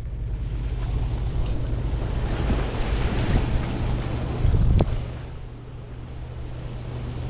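Sea surf washing over the boulders of a rock jetty, with wind buffeting the microphone, and one sharp click about five seconds in.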